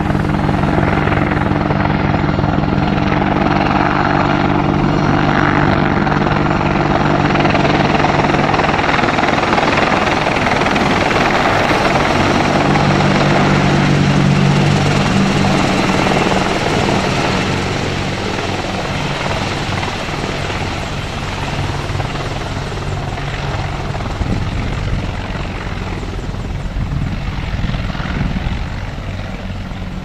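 AH-64 Apache attack helicopter at close range: a steady rotor chop with engine noise. It is loudest about halfway through and eases off somewhat in the second half.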